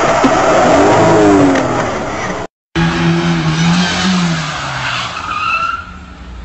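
A loud rushing noise with a tone falling in pitch as a truck sweeps past a dashcam car; then, after a brief cutout, a saloon car's engine revving as it drifts, with a high tyre squeal near the end.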